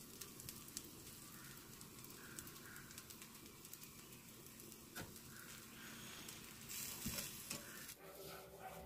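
An uttapam sizzling faintly on a hot tawa, a steady hiss with small crackles. A soft tap comes about five seconds in, and the hiss swells briefly near the end.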